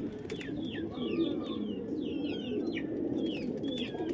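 A flock of pigeons cooing together in a continuous low chorus, with many short, high, falling chirps over it.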